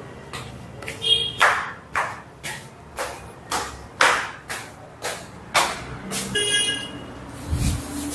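Footsteps on stairs at about two steps a second, each step a sharp slap. Two brief high-pitched beeps come about a second in and about six seconds in, and a low thud sounds near the end.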